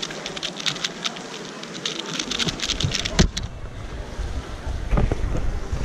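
A 2x2 speedcube being turned very fast: a dense run of plastic clicks for about three seconds, ending in a louder knock as the solve finishes. A few more knocks follow, over a low rumble that sets in partway through.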